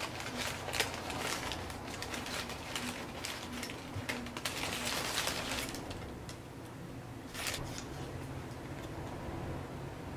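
Rustling of plastic wrapping and light clicks of thin wooden cutout letters and numbers being handled, busiest in the first six seconds, with one more rustle about seven and a half seconds in.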